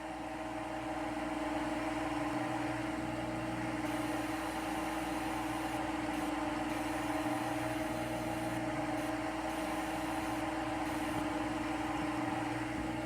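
Steady machine hum with a few held tones over an even whir, like a motor running at constant speed.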